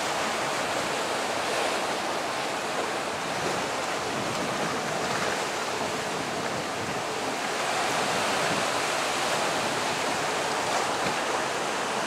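Steady rush of sea water: waves washing around a small boat and against the rock of a sea arch, a little louder in the second half.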